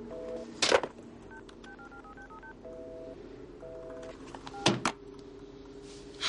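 Touch-tone telephone being dialed: quick runs of short two-note beeps over a steady dial tone, broken by two sharp clacks, one early and one about three-quarters of the way in. A loud hit with a ringing tail comes right at the end.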